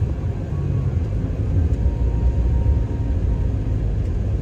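Car driving on a snow-packed road: a steady low rumble of tyre and engine noise.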